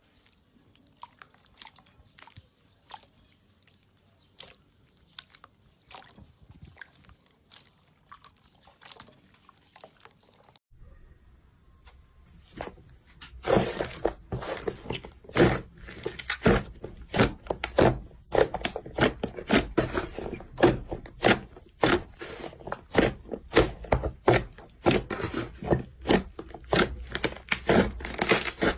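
Slime being squeezed and worked by hand: at first faint sticky clicks and squelches, then, after a cut about eleven seconds in, loud, dense crackling and popping from about thirteen seconds on.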